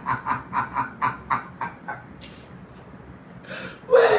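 A person's breathy laughter: a run of short pulses, about four a second, that dies away about two seconds in, followed near the end by a loud voiced outburst.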